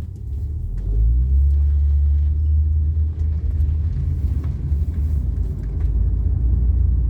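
Steady low road rumble of a car driving, heard from inside the cabin, with faint light ticks and rattles over it.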